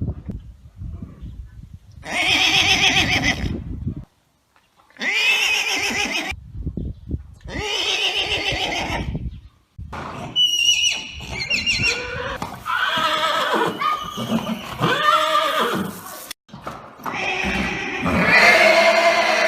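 Horses neighing: a series of about six loud whinnies with wavering pitch. The first three are separated by short pauses, and the later ones follow each other closely.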